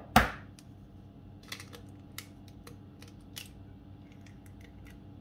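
A single loud knock on a stainless steel mixing bowl just after the start, with a short ring, then a few light clicks and taps as a hen's egg is cracked and its shell pulled apart over the bowl to separate the white from the yolk.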